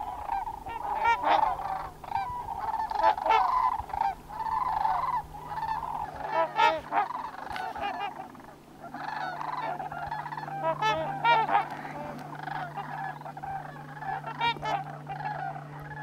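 A flock of trumpeter swans honking: many overlapping calls repeating throughout, some loud and others faint.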